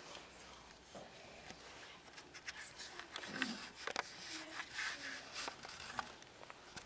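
Scattered rustling and light clicks, with a few small knocks, densest in the middle few seconds, and a faint murmur of voices.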